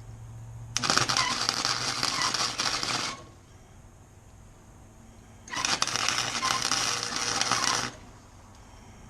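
Electric arc welder laying two welds on rusty steel, each a burst of steady crackling and sizzling lasting a couple of seconds, with a low electrical hum from the welder between them.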